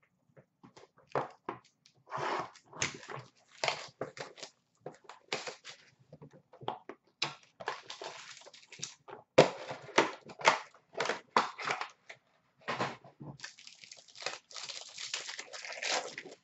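Packaging of a Panini Playbook hockey card box being handled and opened by hand: irregular crinkling and rustling of cardboard and plastic wrap with scattered light knocks, and a longer stretch of crinkling near the end.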